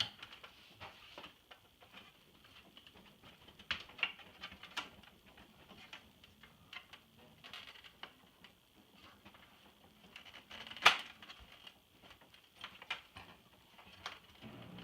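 Scattered light clicks and taps of a screwdriver and other hand tools working at a screw in an iMac G3's plastic case, with one sharper click about eleven seconds in.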